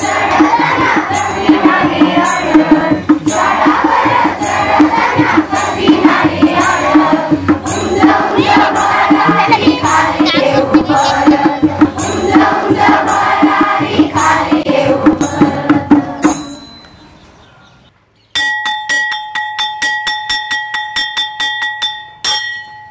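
A group of voices singing a song together over a steady percussion beat, fading out about two-thirds of the way in. After a short pause, a bell is struck rapidly over and over for about four seconds, each strike ringing with the same clear tones.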